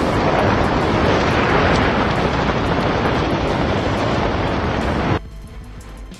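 Hurricane wind blowing hard across the microphone in a loud, steady rush, which cuts off suddenly about five seconds in; faint music follows.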